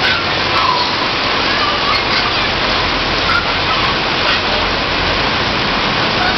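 Heavy rain falling steadily, a loud, even hiss of water.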